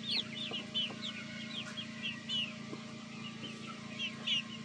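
A flock of young Jubilee Orpington chickens peeping: many short, high cheeps, several a second and overlapping. A steady low hum runs underneath.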